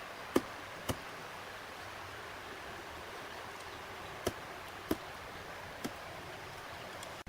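Steady hiss with five short, sharp clicks or knocks at irregular intervals, the first two close together in the first second.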